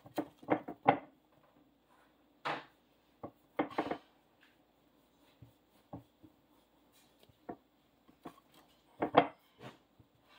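Scattered knocks and scrapes of a long kitchen knife and a plate against a wooden cutting board, with soft rubbing of bread, as a slab of slider rolls is sliced through horizontally. The loudest knocks come in a quick cluster at the start and again about nine seconds in, over a faint steady hum.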